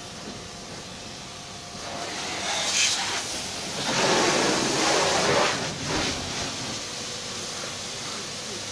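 Steady hiss of water spraying from a car-wash hose gun, with a faint machine hum under it; the hiss grows louder for a few seconds in the middle.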